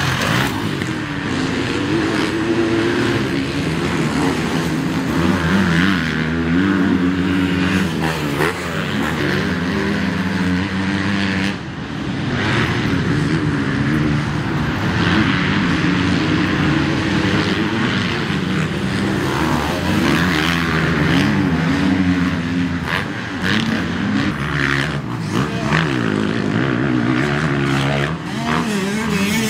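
Several motocross motorcycle engines racing, their pitch rising and falling continually as the riders open and close the throttle, with a short drop in loudness a little before halfway.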